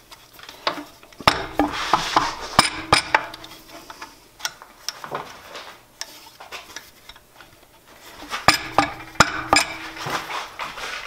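Metal clinks, taps and scraping as the steel spindle of a Jet JWL-1642EVS lathe is worked loose and slid out through the headstock and its pulley. The knocks come in two busy spells with a quieter stretch in the middle.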